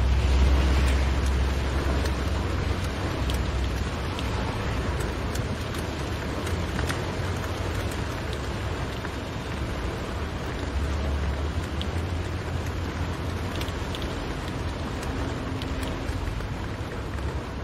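Rain falling on a car's roof and windscreen, heard from inside the cabin: a steady hiss with scattered sharp drop ticks over the low, steady rumble of the car on the road.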